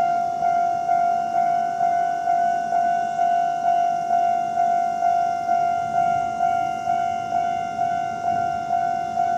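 Japanese railway level crossing warning bell sounding its standard alarm: a single ringing tone repeated evenly a little over twice a second, warning that the crossing is closed for a tram.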